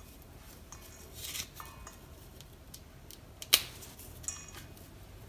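Fresh rosemary sprigs being stripped by hand: soft rustling and small crackling snaps as the needle-like leaves are pulled off, with a few light ticks and one sharper click about three and a half seconds in.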